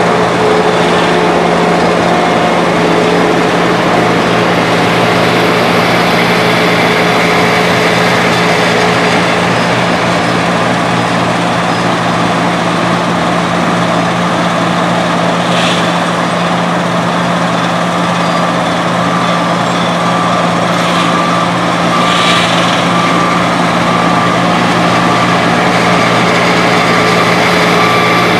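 Heavy road-construction machinery running steadily, its diesel engines giving a constant low hum. A short beep repeats about once a second throughout, higher in pitch in the second half.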